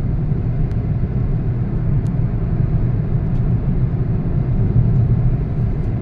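Steady low rumble of a moving car's engine and tyres on the road, heard from inside the cabin.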